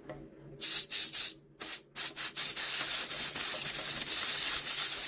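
Compressed air hissing into a fuel tank and its clogged petrol tap: a few short blasts, then one steady blast. It is an attempt to blow out a tap blocked with congealed fuel, which still gives no flow.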